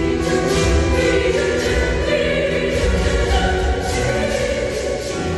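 Children's choir singing, many voices holding sustained chords.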